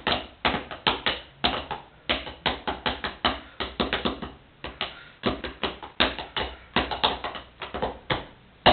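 Wooden drumsticks beating on a pair of sneakers used as a makeshift drum kit: quick, sharp taps in a busy, uneven drum pattern, several strokes a second.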